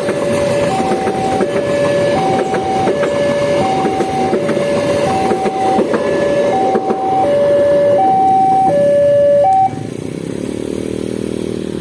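Railway level-crossing warning alarm sounding a repeating hi-lo two-tone signal, switching pitch about every 0.7 s, over the rumble of a passing train. The alarm stops about ten seconds in and the train noise goes on.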